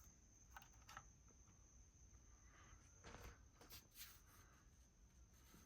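Near silence, with a few faint clicks and light rustles of small parts being handled.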